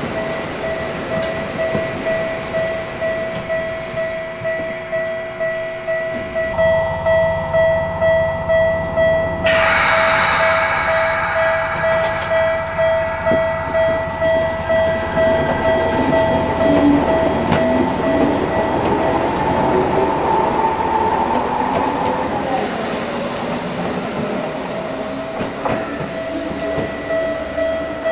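Toyama Chiho Railway 14760 series electric train running, with the whine of its externally fanned Toyo Denki TDK-8205A traction motors rising in pitch through the second half over wheel rumble. A sudden loud rush of noise comes about ten seconds in, and a steady ringing tone runs underneath.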